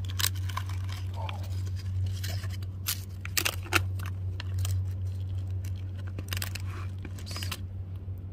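Wooden fork breaking and tearing through the flaky phyllo layers of baklava and scraping the cardboard box: a run of crackly, papery crunches, a few sharper ones about three and a half seconds in, stopping shortly before the end. A steady low hum runs underneath.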